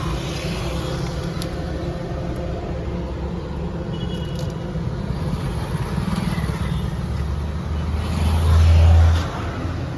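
Steady highway traffic rumble at the roadside, with a louder low rumble swelling about eight seconds in and dropping away sharply about a second later.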